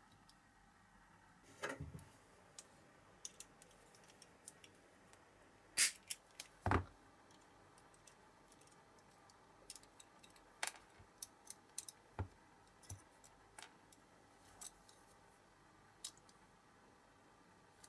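Scattered sharp clicks and taps of pliers and small metal parts handling a diecast toy car, with a couple of louder knocks about six and seven seconds in.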